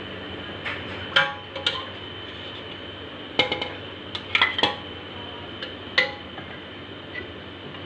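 Metal utensils clinking against cookware: about six sharp, irregular clinks with a short metallic ring, the loudest about a second in and again near four and a half and six seconds.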